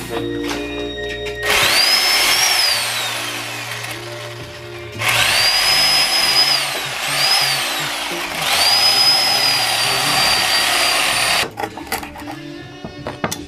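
Electric power tool motor run in four bursts. Each burst is a whine that climbs, holds and then falls away, over a loud rush of noise. The last burst is the longest. Light clicks and clatter follow near the end.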